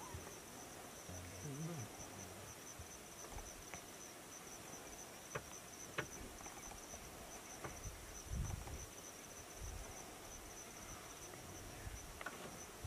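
Insects trilling steadily at one high pitch, with a few faint clicks and low thumps scattered through.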